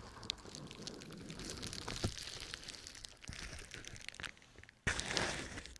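Plastic bubble wrap crinkling and rustling against the microphone, with scattered small crackles; the rustling breaks off briefly just before the end, then comes back louder.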